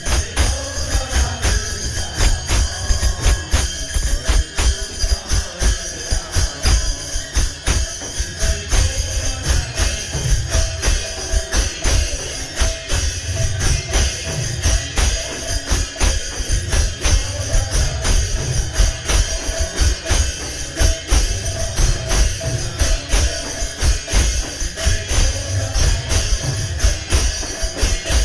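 Instrumental kirtan music: fast, steady jingling metal percussion over a driving drum beat, with a faint held tone beneath.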